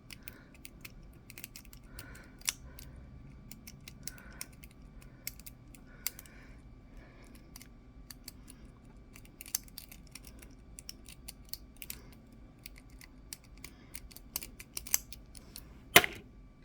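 A lock pick and tension wrench working a cheap brass pin-tumbler padlock: scattered light metallic clicks and scratching as the pins are picked, with one louder, sharper click near the end.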